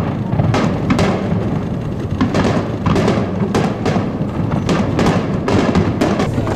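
Fireworks barrage: aerial shells bursting in quick succession, sharp booms and cracks about two a second over a continuous rumble.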